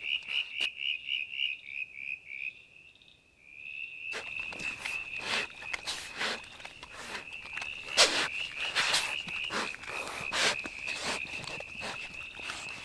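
A young Tasmanian devil chewing and tearing at a roadkill carcass, with irregular crunches, cracks and rustles in the leaf litter starting about four seconds in; the loudest crack comes about eight seconds in. Behind it, a steady high trill made of fast pulses, fainter for a moment before the chewing starts.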